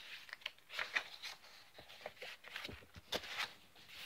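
Pages of a picture book being turned and handled: a run of soft paper rustles and light clicks.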